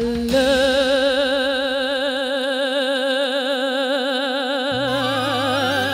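A singer holds one long final note with a strong, even vibrato over sustained backing music, ending the song; a new low bass note comes in near the end.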